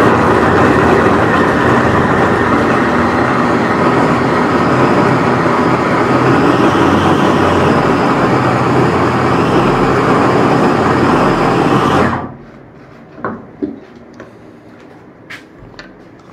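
Smart Tek stainless-steel electric food chopper running steadily under load, its blades mincing beef with onion, tomato and green chillies. The motor cuts off about twelve seconds in, followed by a few light knocks and clicks.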